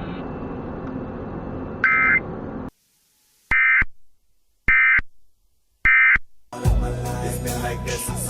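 Emergency Alert System end-of-message code: three short warbling data bursts about a second apart, after a stretch of broadcast hiss with one brief data burst in it. Music starts loudly near the end.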